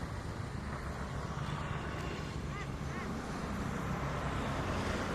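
Steady low engine rumble, with two faint short chirps about halfway through.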